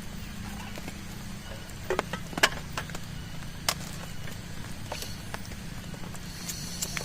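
Scattered sharp clicks and knocks, the loudest about two and a half seconds in, over a steady low hum.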